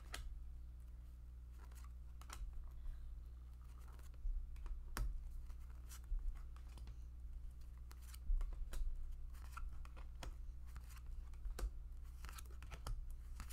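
Tarot cards being dealt and laid down one by one on a bare wooden table: soft, scattered taps and slides of card stock against the wood, over a steady low hum.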